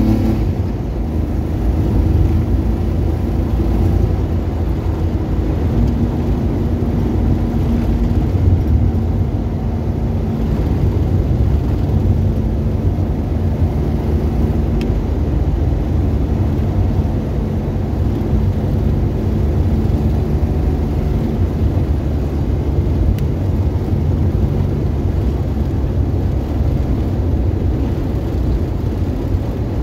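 Car engine running steadily, with tyre and road rumble from driving on snow, heard from inside the cabin.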